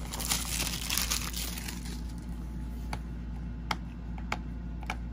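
Plastic shrink wrap crinkling as it is ripped and peeled off a DVD case, followed by a few light, separate clicks as fingers pick at the case's security sticker.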